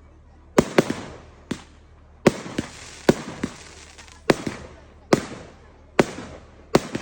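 Fireworks going off: about a dozen sharp bangs at irregular intervals, often in quick pairs, each trailing off in a fading echo.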